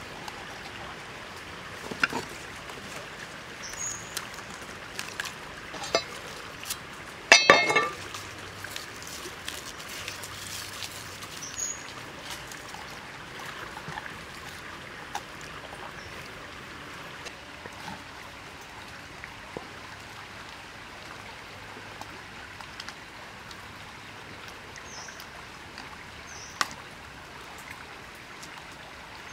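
Steady trickle of running water, with a few short knocks and clicks from a whole raw chicken being handled and skewered on a wooden board. A louder clattering burst comes about seven seconds in, and a single sharp click near the end.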